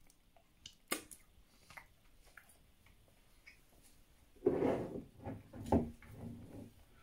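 Light clicks and knocks of kitchen things being handled on a wooden worktop, with a louder clatter about four and a half seconds in and a sharp knock soon after.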